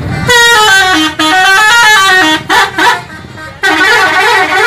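Multi-tone musical "telolet" horn on a Mercedes-Benz tour bus, playing a quick stepping tune of several notes, then two short blasts, and a long warbling chord from about three and a half seconds in.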